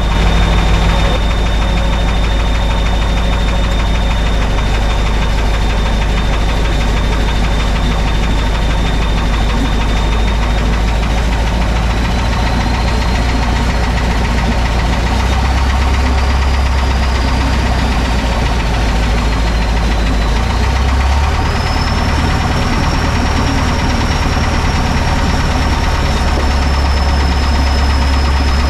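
Thiokol Spryte snowcat's engine running steadily, with a thin high whine over it. The whine and the engine note climb twice, about halfway through and again about two-thirds of the way in.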